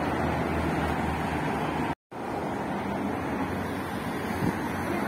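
Steady outdoor background noise with a low rumble, broken by a moment of dead silence about two seconds in.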